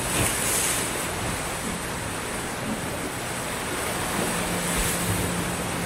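Small sea waves breaking and washing up a sandy beach: a steady rush of surf.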